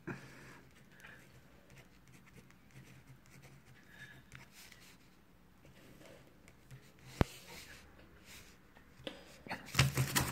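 Ballpoint pen scratching across a sheet of paper on a tabletop as words are written. A single sharp click comes about seven seconds in. Louder rustling of the paper under the hand comes near the end.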